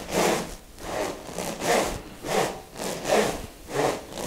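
Pair of smovey swing rings being swung back and forth, the steel balls inside rushing round the spiral-grooved hoses with each swing: a rhythmic swish repeating roughly every three quarters of a second.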